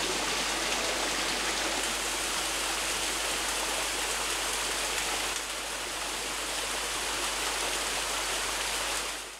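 Small waterfall and its stream rushing steadily over rocks, dipping slightly about five seconds in and fading out near the end.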